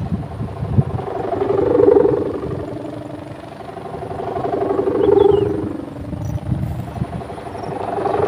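A pegon kite's 7-metre plastic-ribbon sendaren, a bow-strung hummer, droning in flight; the buzzing hum swells and fades about every three seconds. A low, gusty rumble runs underneath.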